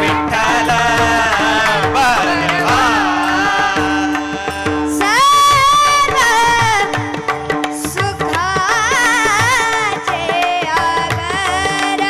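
Marathi bhajan music: an ornamented, wavering vocal line with a long high held note about halfway through, over a steady drone and tabla strokes.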